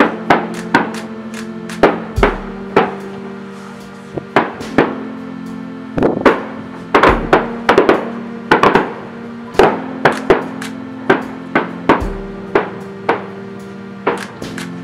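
Aerial firework shells bursting in an irregular quick run of sharp bangs, about two a second, each with a short echo. Sustained music chords play underneath.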